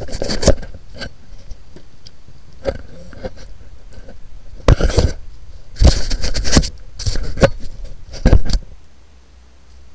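Irregular knocks, scrapes and rustles close to the microphone, with loud clusters about five, six and eight seconds in, then only a low steady background noise near the end.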